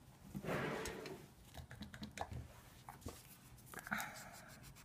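Faint handling sounds: a scatter of light clicks and taps, then about four seconds in a brief rub as a pad is wiped over an acrylic nail to cleanse its surface.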